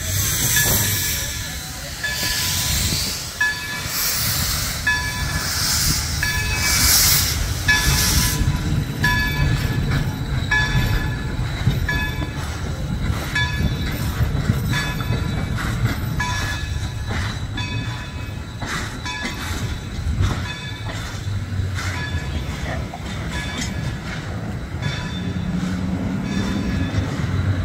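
Steam excursion train, its passenger coaches pulled by Baldwin 0-6-0 switcher No. 26, rolling past and away on the rails with a steady rumble. A hissing sound swells and fades over the first several seconds, and a short tone repeats about every three-quarters of a second.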